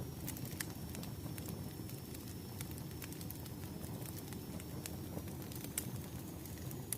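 Burning firewood crackling: a steady low rustle of flames with scattered sharp pops and snaps.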